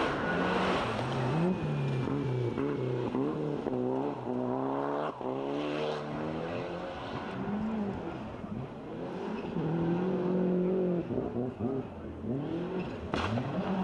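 Rally car engines revving up and dropping back with each gear change, several times over, as the cars drive the gravel stage.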